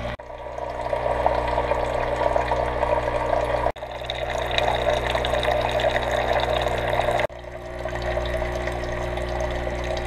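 Saeco Odea Go espresso machine's pump humming steadily while it dispenses hot descaling solution through the hot-water wand, which splashes into a glass carafe; the sound breaks off briefly twice.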